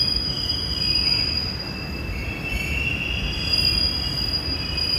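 Busan Metro Line 1 subway train pulling into the platform behind the screen doors: a low rumble of the cars with high, steady wheel squeal over it, its pitch wavering.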